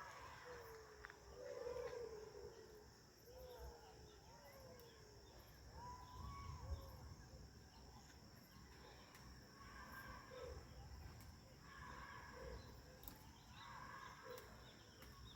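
Faint outdoor ambience: a steady high insect drone with scattered short chirping calls throughout.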